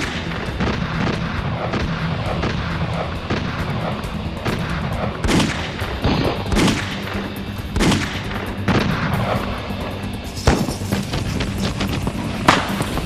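Scattered rifle shots at irregular intervals, over background music.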